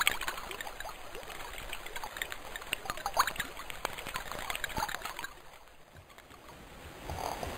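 Trickling stream: water bubbling and dribbling in small irregular splashes, fading away a little over five seconds in.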